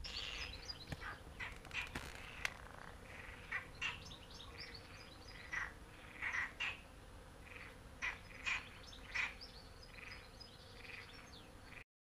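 Birds calling: many short chirps and calls, one after another at irregular spacing. The sound cuts off suddenly near the end.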